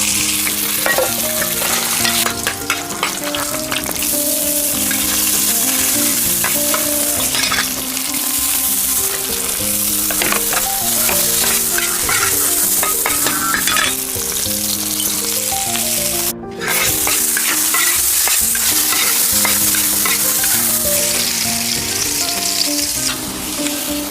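Food sizzling in a hot pan as it is stir-fried, with a steady crackling hiss and stirring that breaks off briefly about two-thirds through. A soft melodic background tune runs underneath.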